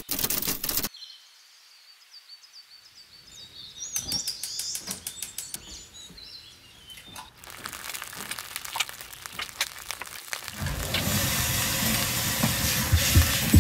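Birds chirping faintly, then kitchen clatter: a run of sharp clicks and knocks from pans and utensils on a gas hob. From about ten seconds in, food sizzles loudly as it fries in a pan.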